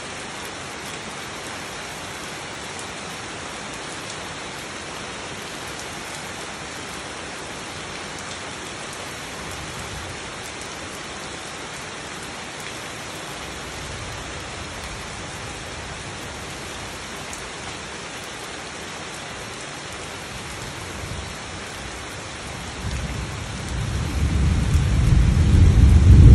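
Steady rain falling on garden foliage and wet ground. In the last few seconds a roll of thunder builds up as a low rumble and becomes the loudest sound.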